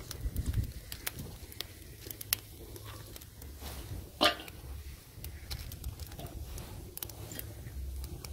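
Small twig fire crackling and popping in a steel fire bowl, with sticks rustling as they are laid on. A single sharp crack about four seconds in is the loudest sound.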